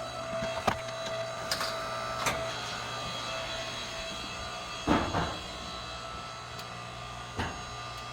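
A motor hums steadily while firewood is handled, giving several sharp wooden knocks; the loudest cluster comes about five seconds in.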